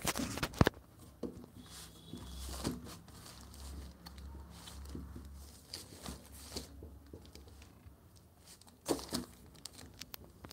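Plastic courier mailer bag crinkling and rustling while a paperback book is handled. There is a loud rustle right at the start and another short burst of rustling near the end.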